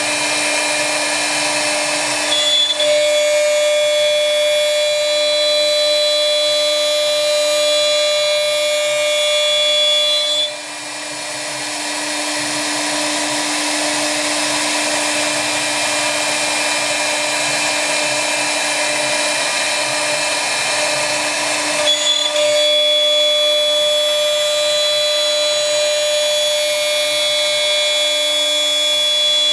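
CNC router spindle running steadily while milling a wooden baluster turned on a servo-driven rotary axis. A higher steady whine joins in about two seconds in, drops out with a dip in level about ten seconds in, and comes back a little after twenty seconds.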